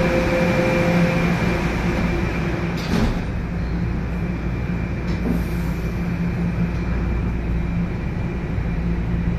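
Toronto subway train (TTC Toronto Rocket) heard from inside the car, a steady low hum and rumble. The doors slide shut about three seconds in with a sharp knock, and there is a lighter knock about two seconds later as the train gets ready to leave the station.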